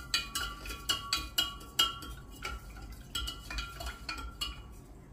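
A spoon stirring salt into water in a large glass jar to make brine, knocking against the glass with ringing clinks about two or three times a second. The clinks grow fainter and stop near the end.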